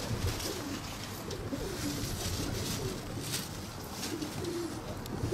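Pigeons cooing in a few short low calls, over a steady hiss of wind on the microphone.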